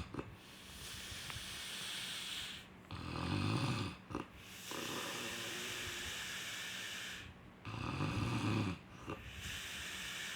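A sleeper snoring in a slow, regular breathing cycle. Two low, rattling snores about a second long come about five seconds apart, with breathy, hissing breaths in between.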